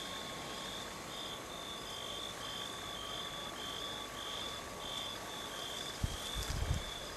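Night chorus of calling animals: short high chirps repeating about twice a second over a steady hiss and a faint high whine. A few low thumps come near the end.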